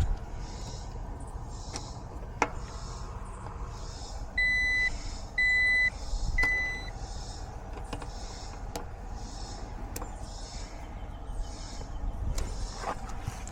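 Three electronic beeps, each about half a second long and one second apart, over insects chirping in a steady rhythm, with a few sharp clicks.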